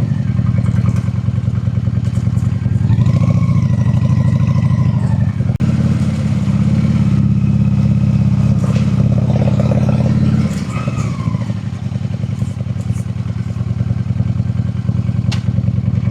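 Honda Shadow V-twin cruiser engine running as the bike is ridden, with a steady low, pulsing exhaust beat. It pulls harder through the middle, then eases off about ten seconds in.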